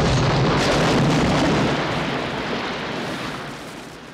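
Deep rumble of a multi-storey building collapsing in an explosive demolition, fading away over the second half.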